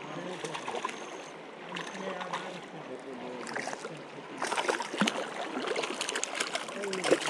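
Shallow, fast creek burbling over a gravel bed. From about four seconds in there is splashing and sloshing as a small hooked brown trout is drawn in to hand.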